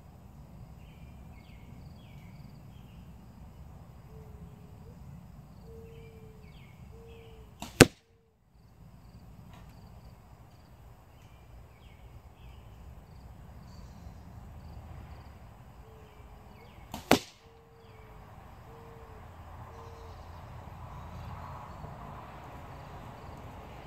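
Arrows from a compound bow striking a fabric-covered archery target bag right by the microphone: two sharp thwacks about nine seconds apart. Faint outdoor background between them.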